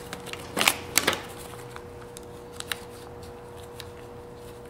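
Plastic gasket packaging crinkling and crackling in gloved hands as the packet is opened, with two sharper crackles about half a second and a second in, then a few light ticks, over a faint steady hum.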